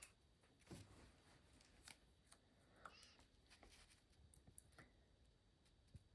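Near silence with faint, scattered rustles and light clicks of hands handling black washi tape and pressing it along the edge of a diamond painting canvas.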